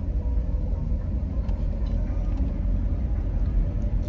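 Car cabin noise while driving slowly: a steady low rumble of engine and road, with a faint steady hum.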